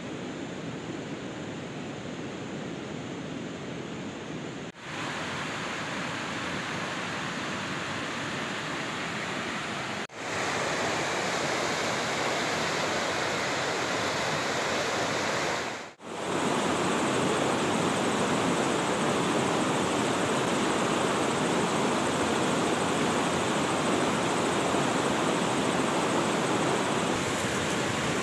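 Steady rush of a fast-flowing river running over rocks. It cuts out briefly three times, about 5, 10 and 16 seconds in, and comes back louder each time.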